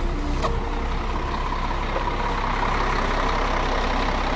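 Kässbohrer PistenBully snow groomer's diesel engine running steadily while the machine stands still, a low hum with a steady mid-pitched tone over it. A short sharp click sounds about half a second in.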